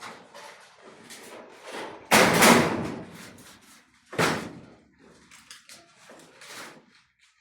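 Two loud, sudden bangs about two seconds apart, each fading over about a second, with fainter knocks and clatter around them.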